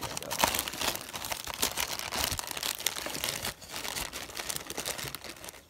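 Clear plastic bag crinkling and crackling as hands pull it off a new harmonic balancer in its cardboard box: a dense, continuous run of crackles.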